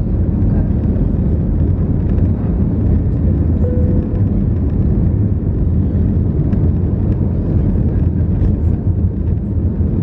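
Cabin noise of an Airbus A321neo's Pratt & Whitney PW1100G geared turbofans at takeoff thrust during liftoff and initial climb, heard inside the cabin at a window seat over the wing. It is a loud, steady, deep engine drone with rushing air.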